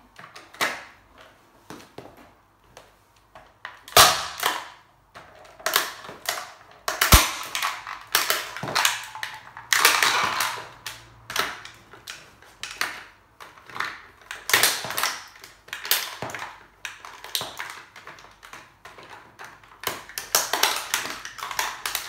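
Hard plastic toy remote-control car being pressed and stamped on by stiletto heels: irregular clicks, knocks and creaks of the plastic body, mixed with heel taps on wooden floorboards. There is a sharp loud knock about four seconds in and another about seven seconds in.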